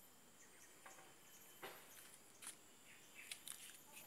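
Near silence: faint outdoor garden ambience with a thin, steady high insect hum and a few soft rustles and light chirps.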